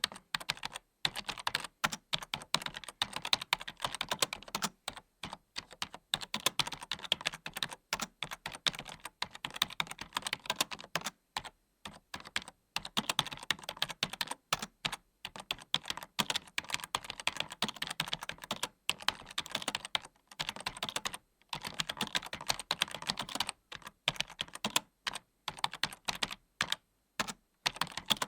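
Typing on a computer keyboard: a fast run of key clicks and clacks, in bursts with short pauses between them.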